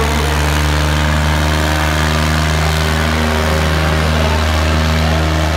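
Diesel engines of two tractors, a Sonalika DI 350 RX and a John Deere 5310, running steadily under heavy load as the tractors pull against each other in a tug-of-war. The engine note holds a constant pitch.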